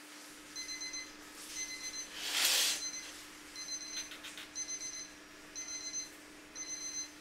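Electronic alarm beeping about once a second, each short beep a high fluttering double tone. About two and a half seconds in, a brief louder whoosh of noise passes over it.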